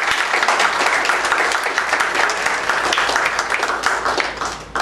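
A small congregation applauding: a dense run of many hand claps that dies away near the end.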